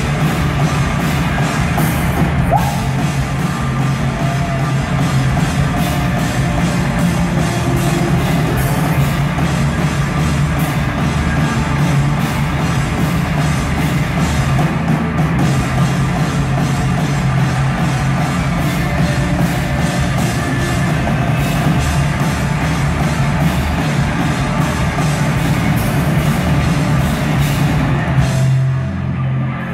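Live heavy rock band playing at full volume, drum kit and cymbals over a dense wall of sound. About 28 seconds in, the drums and cymbals drop out, leaving a low sustained drone.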